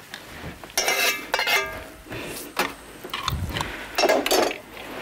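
Dishes and utensils clinking and clattering, several short, irregular knocks and chinks.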